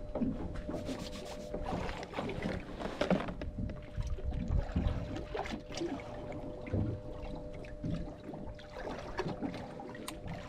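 Irregular knocks and bumps aboard a fishing boat, over a low rumble, with a faint steady hum underneath.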